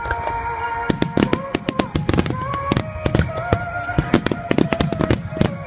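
A large fireworks display, with many shells bursting in rapid succession, several booms a second, while music with a sustained melody plays over the loudspeakers.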